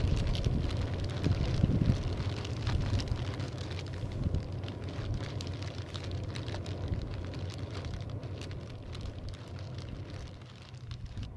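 Wood campfire crackling, with wind buffeting the microphone as a low rumble; the sound fades away near the end.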